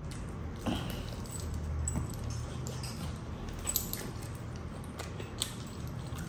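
Close-miked eating sounds: chewing and lip smacks on a saucy spinach-coated chicken drumstick, with a few sharp clicks scattered through, over a steady low hum.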